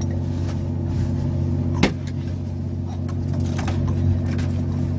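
Steady low drone of a fishing boat's engine running, with a single sharp knock a little under two seconds in.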